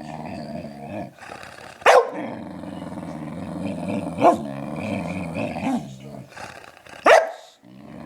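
Puppy growling without a break, in wavering, drawn-out growls, broken three times by a sharp bark.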